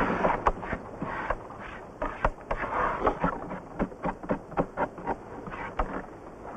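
Knives chopping vegetables on a wooden plank: irregular sharp knocks of the blades hitting the wood, a few a second, with some rustling in between.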